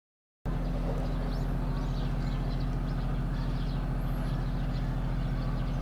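Small Honda Gyro X scooter engine running steadily, cutting in suddenly about half a second in, with birds chirping over it.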